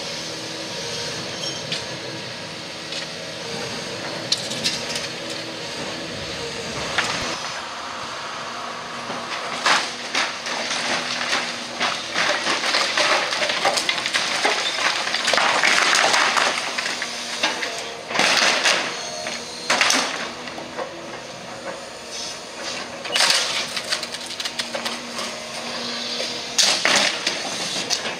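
Hydraulic excavator with a demolition grab tearing apart a house: the engine hums steadily, then from about nine seconds in come crunching and clattering of broken roof timber, tiles and rubble, with several sharp crashes.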